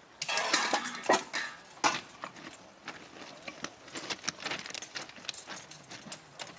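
Metal hand tools clinking and scraping at a thermite rail-weld mould, with a cluster of sharp clanks in the first two seconds, then lighter scattered clicks and footsteps on track ballast.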